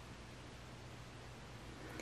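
Faint steady hiss with a low hum: room tone, with no distinct sound.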